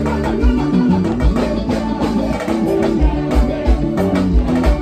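A live gospel worship band plays over a loud PA, with a steady, driving kick-drum beat under bass, keyboards and electric guitar.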